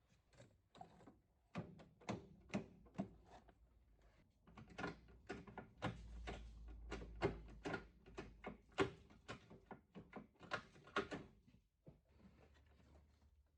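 A quick, irregular run of sharp clicks and knocks, some louder than others, as tools and parts are handled during work on a Nissan Micra's engine bay.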